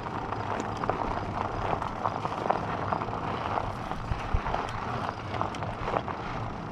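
Fat-tire e-bike coasting with its mid-drive motor off: steady tyre and road noise with many small irregular crackles, typical of fat tyres rolling over gravel, and no motor whine.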